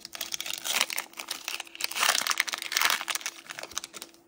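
Foil wrapper of a Pokémon booster pack crinkling and crackling as it is torn open and the cards are pulled out, in dense irregular crackles that die away near the end.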